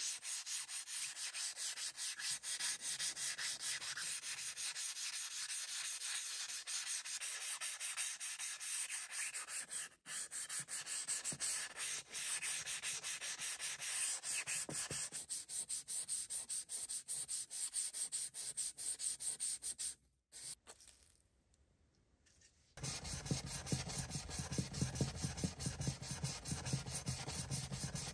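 Sandpaper rubbed by hand over a steel forged hammer head in quick back-and-forth strokes. After a short pause about three-quarters of the way through, the sanding resumes with the hammer rubbed across a sheet of sandpaper lying flat on the bench, sounding deeper.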